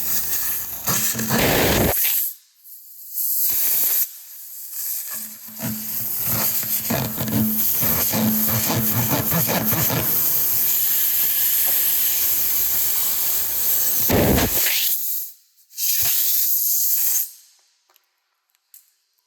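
Air hissing out of a punctured car tire through the freshly reamed hole, with scraping and clicking from the repair tool in the first half. The hiss drops out briefly twice and stops near the end.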